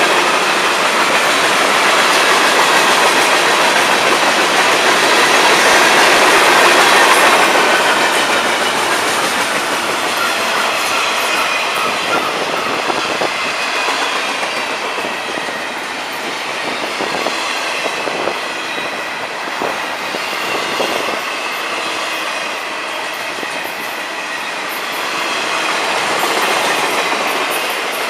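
FEC freight train rolling past close by: steel wheels rumbling and clattering over the rail joints in a steady stream, with a faint high squeal from the wheels. The cars going by are loaded open hoppers, then double-stack intermodal well cars.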